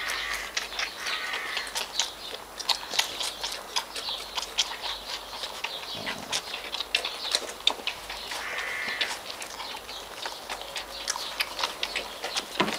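Chocolate Labrador puppies nursing and scrambling over their mother, making many small clicks and scuffles, with high puppy whines near the start and again about nine seconds in.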